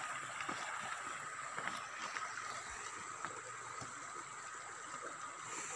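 Shallow stream running over rocks, a steady hiss of flowing water, with a few faint clicks of footsteps on stones.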